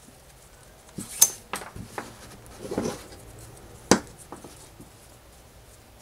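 Handling noise from tying cobra knots in paracord by a plastic side-release buckle: a few sharp clicks and taps, the loudest about a second in, and a short rustle of cord near the middle.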